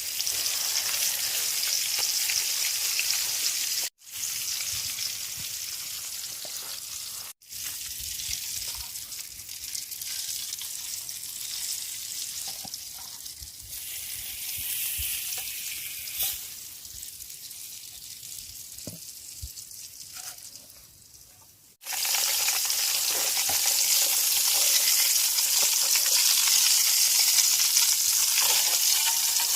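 Food sizzling as it fries in a pan, a steady hiss with small crackles. It cuts out abruptly three times, about four, seven and twenty-two seconds in, and comes back louder after the last cut.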